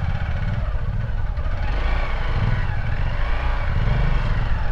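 Single-cylinder engine of a Hero Xpulse 200 dual-sport motorcycle running as it is ridden slowly over a rocky dirt track, its note rising and falling a little around the middle.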